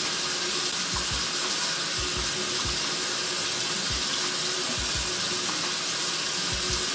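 Steady hiss of water running from a bathroom tap, with a few soft low thumps.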